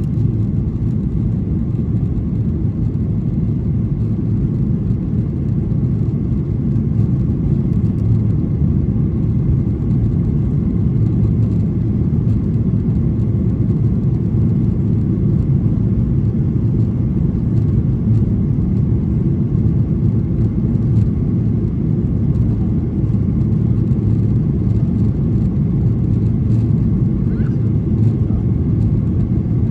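Boeing 737-800's CFM56-7B jet engines at takeoff thrust, heard inside the cabin: a loud, steady low rumble mixed with rushing air as the airliner lifts off and climbs.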